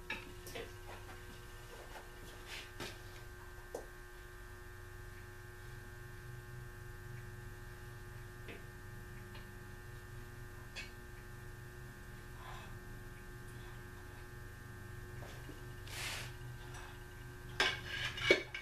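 Steady electrical hum with scattered light metal clinks. Near the end comes a run of sharper metal clanks as a long screwdriver is worked against the crankshaft of a stripped Packard engine block.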